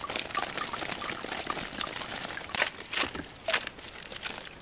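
Water trickling and splashing, with many small crackling drips and three sharper, louder noises in the second half.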